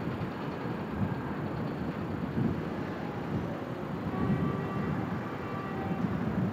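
Gusty outdoor rumble of wind on the microphone over distant harbour noise, uneven and low. A few faint steady tones come in about four seconds in.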